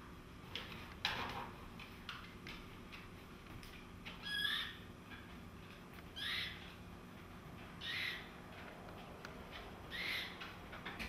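An orphaned black downy chick peeping: short, high calls repeated every two seconds or so, the calls of a chick looking for a parent. A single sharp knock about a second in.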